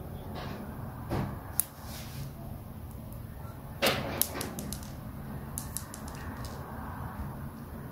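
Small pink plastic toy pieces clicking and tapping as they are handled and fitted together, with the loudest click about four seconds in and a quick run of light ticks a little later. A steady low hum runs underneath.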